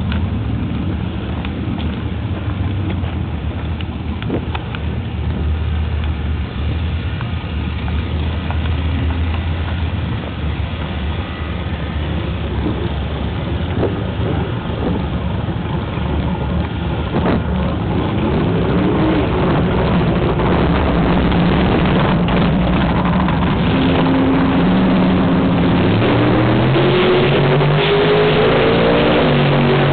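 Big Oldsmobile's engine running at a steady idle, then revving repeatedly in the last third, rising in pitch and growing louder.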